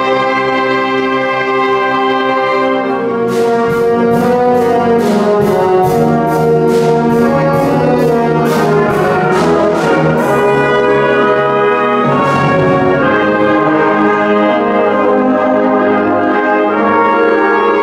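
Concert wind band of brass and woodwinds playing full sustained chords in a reverberant church. From about three seconds in until about ten seconds in, a steady beat of sharp percussion strokes runs under it, about three a second.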